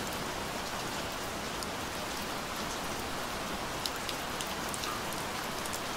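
Steady rain falling on a surface: an even hiss with scattered sharp drop ticks.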